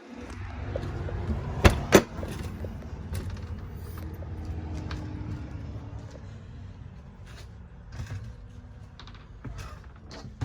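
Two sharp clacks about two seconds in, then scattered lighter knocks and clicks, over a steady low rumble of handling and wind noise: a trailer door and fittings being handled.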